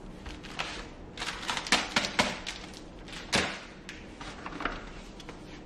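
Kitchen storage containers being handled while flour is refilled: a quick run of light clicks and taps about one to two seconds in, then a single louder knock about three and a half seconds in.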